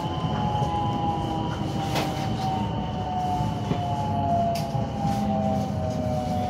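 Electric train heard from inside the carriage: its traction motors whine in several tones that fall slowly in pitch as it slows into a station, over a steady rumble of wheels on rails. A single sharp click about two seconds in.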